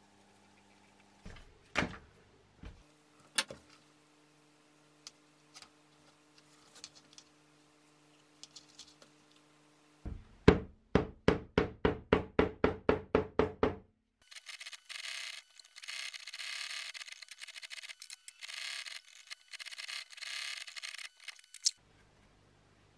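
A few faint snips and clicks of small scissors trimming leather, then a quick run of about fifteen shoemaker's hammer taps on leather over a hard board, the loudest part. Then several seconds of scratchy rubbing as a brush is worked over the leather.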